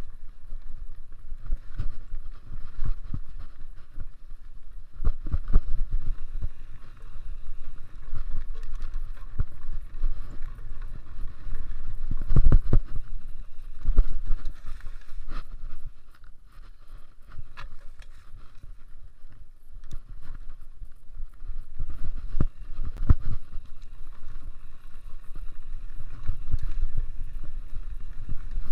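Mountain bike ridden over a rough trail: a steady low rumble with frequent knocks and rattles from bumps, the hardest about twelve seconds in, easing off for a few seconds past the middle.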